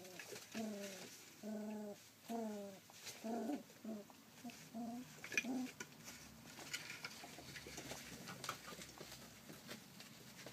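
Rough collie puppy giving a string of short whimpering calls, about a dozen, that stop about five and a half seconds in. After that there are only small clicks and scuffles of puppies moving about.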